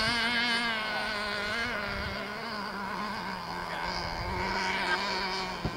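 Novarossi .46 nitro glow engine of an RC speedboat running at high revs as the boat races across the water, its high-pitched whine wavering in pitch and fading somewhat after about two seconds as the boat moves away. There is a brief click near the end.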